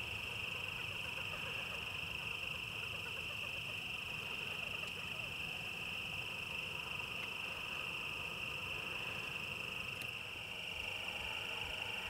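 Steady high-pitched insect chorus, an unbroken drone, with a faint click about ten seconds in.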